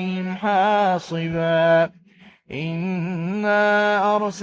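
A solo male voice reciting the Quran in melodic tajweed style, drawing words out in long held notes with wavering ornaments. There is a brief pause about two seconds in.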